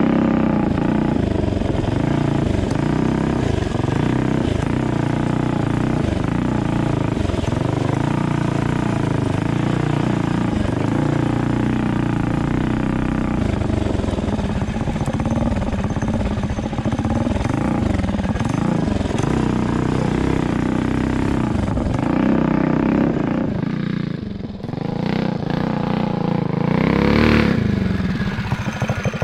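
Tillotson 225cc single-cylinder racing engine on a mini bike running under throttle on a trail, its note rising and falling with speed. Near the end it revs up hard.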